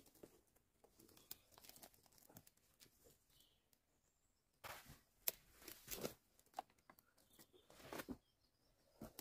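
Thick, plated tree bark cracking and crunching as a large slab of it is handled, a few short sharp cracks from about halfway through and again near the end, faint in between.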